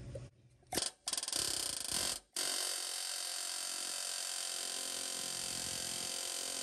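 Pneumatic air hammer with a punch bit hammering rapidly on a riveted steel truck frame to drive out a rivet whose head has been cut: two short bursts about a second in, a brief pause, then a steady fast buzz of blows.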